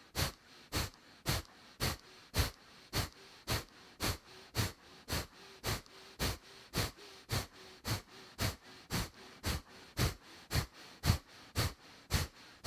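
Kapalabhati breathing: a man's short, forceful exhalations through the nose, each a brief hiss, in an even rhythm of about two a second.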